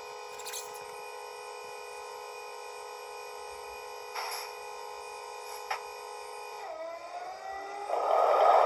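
ESU sound decoder in a Märklin DB class 218 model diesel locomotive, playing a steady diesel idle through the model's small loudspeaker, with a few short hisses and a click. About seven seconds in, the engine sound revs up with a rising whine, and near the end it turns into a loud rushing run-up.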